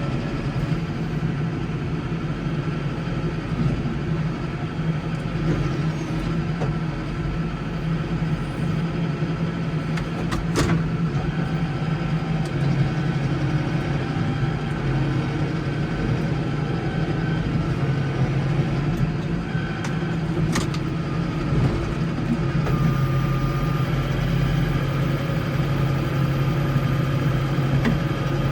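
Case 115U tractor's engine running steadily while it clears snow, with two brief sharp clicks or knocks, about ten seconds apart.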